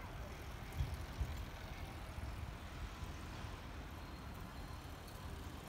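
Faint, uneven low rumble of outdoor background noise; no train passes.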